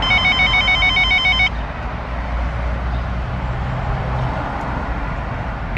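An electronic ringtone warbles in quick stepped notes for about the first second and a half. A steady low rumble of vehicle engine and road noise runs underneath throughout.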